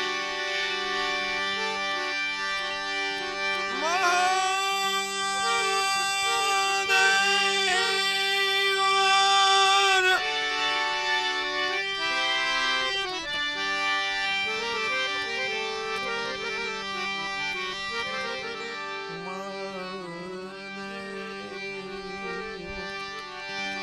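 Harmonium playing a slow introduction of sustained reed chords and melody. From about four to ten seconds a brighter, wavering melody line slides up and rides above the chords, the loudest part, then fades back to the harmonium alone.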